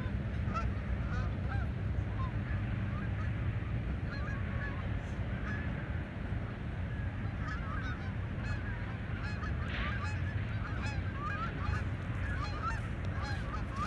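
A flock of geese flying overhead, honking continuously in many overlapping calls, over a steady low background rumble.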